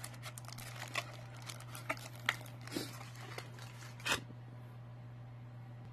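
Cardboard flashlight box and its packaging being handled and opened by hand: scattered rustles, crinkles and light clicks, with a sharper click about four seconds in. A steady low hum runs underneath.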